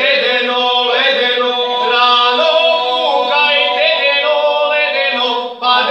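A small group of men singing a Serbian traditional folk song unaccompanied, several voices together on long held notes, with a short break for breath near the end.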